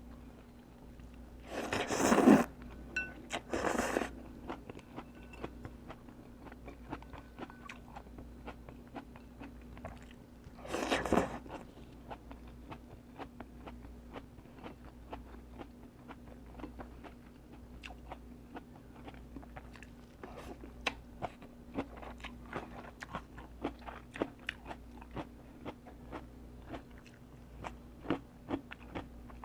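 Close-miked mukbang eating of pho noodle soup: three louder noisy slurps, two early and one about eleven seconds in, then steady chewing with many small crunchy clicks.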